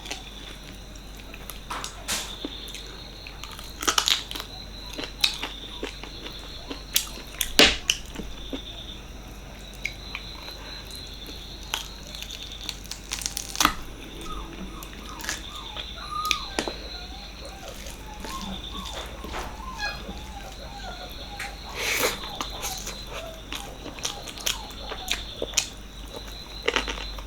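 Close-up eating sounds of mutton paya curry with rice: chewing, with scattered sharp clicks and mouth smacks, the loudest about 4 and 7 seconds in.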